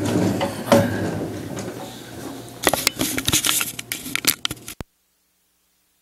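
Handling noise close to a tabletop conference microphone: shuffling, then a quick string of sharp clicks and knocks. The sound then cuts off dead a little before five seconds in.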